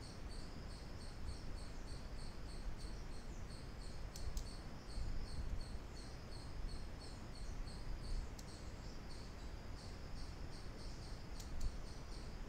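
Insect chirping steadily, a high, evenly repeating pulse, over low background hum, with a few faint clicks.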